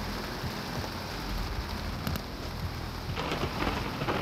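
Steady rain falling, a continuous hiss with a low rumble underneath, growing a little louder near the end.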